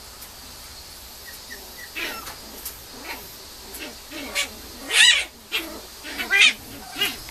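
Mame shiba puppy giving a string of short, high-pitched whines and yelps. The loudest call comes about five seconds in.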